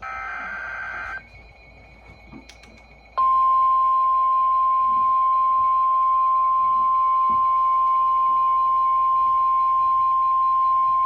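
NOAA Weather Radio emergency alert: a brief burst of screeching digital SAME header tones, then, about three seconds in, the weather radio's warning alarm tone (the 1050 Hz tone), one loud, unbroken steady pitch signalling that a warning is about to be read.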